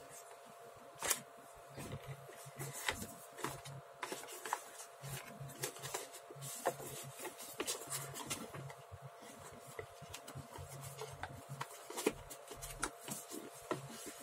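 Soft, irregular clicks, taps and rubbing from hands handling a small object at a desk, over a faint steady hum.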